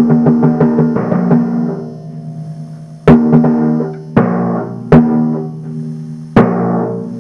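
A pair of timpani struck with felt mallets. A quick even run of strokes opens the passage, then four single loud strokes follow, each left to ring and die away.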